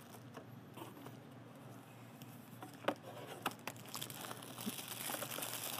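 Plastic packaging and a cardboard box being handled: faint crinkling of a plastic bag with a few light clicks and knocks, the rustling growing busier over the second half.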